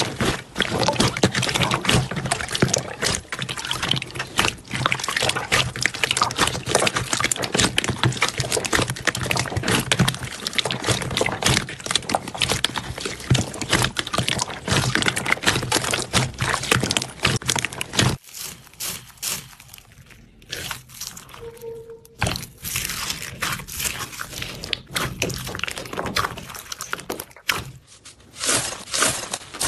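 Hands squeezing and poking sticky slime in a bowl: a dense run of wet squelches, clicks and little pops of trapped air, with a quieter spell a little past the middle.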